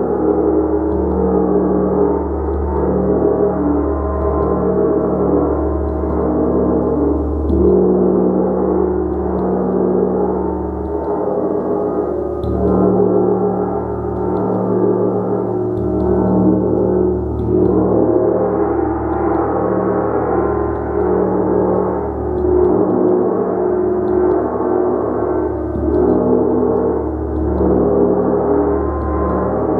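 Gong played continuously with a mallet: a dense, sustained wash of many overlapping ringing tones that swells and eases every few seconds, with no single strike standing out.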